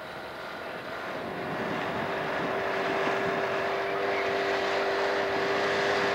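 Outboard motor of a coaching launch running with a steady hum, growing louder over the first few seconds and then holding.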